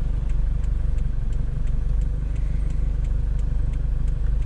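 A motor vehicle's engine running at low speed: a steady low rumble with a faint steady tone, and faint regular ticks about three times a second.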